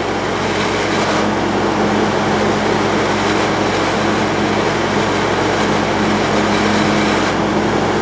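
Haier ESAQ406T Serenity Series 6,200 BTU window air conditioner running with its fan on high and the compressor on: a steady rush of air over a low hum. The high fan speed is thawing an evaporator coil that frosted over from too little airflow on low speed.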